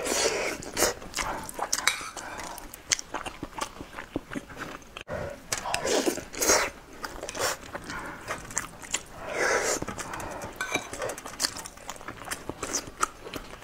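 Close-miked eating sounds from a soft rice dish taken by spoon: wet chewing and smacking clicks throughout, with louder noisy swells as spoonfuls go into the mouth at the start, about six seconds in and near ten seconds. A metal spoon clinks and scrapes on the ceramic bowl.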